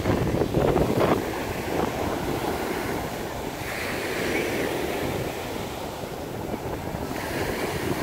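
Small North Sea waves breaking and washing up onto a sandy beach, a steady rush of surf, louder in the first second, with some wind on the microphone.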